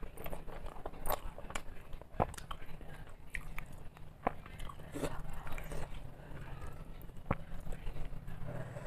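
Close-up eating sounds: chewing and mouth noises of a person eating rice and fish curry by hand, with scattered small clicks and squishes from fingers mixing the wet rice on a steel plate. A steady low hum runs underneath.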